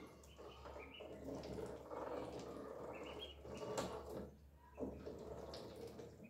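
Ducklings peeping in short, high, rising chirps while they dabble and feed in shallow water, with splashing and a couple of sharp taps about four and five seconds in.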